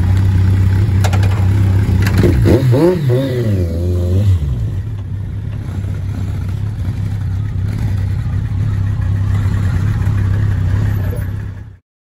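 Motorcycle engine running, its revs rising and falling a few times about two to four seconds in. Then a steadier, quieter motorcycle riding sound, which cuts off abruptly near the end.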